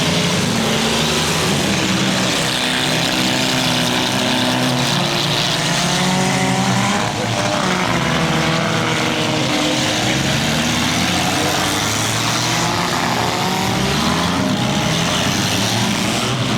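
Several mini-car demolition derby engines revving, their pitches rising and falling over one another.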